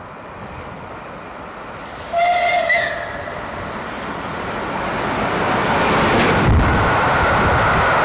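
Steam locomotive 35028 Clan Line, a Bulleid Merchant Navy class 4-6-2, approaching with its train and growing louder; it gives a short whistle about two seconds in. A brief loud rush comes about six and a half seconds in as it draws close.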